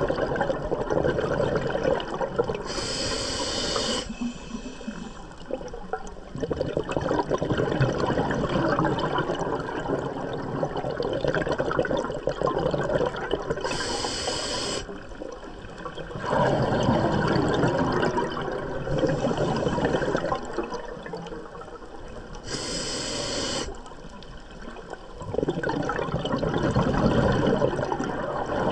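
Scuba diver breathing through a regulator underwater: three short hissing inhalations, each followed by several seconds of bubbling exhalation.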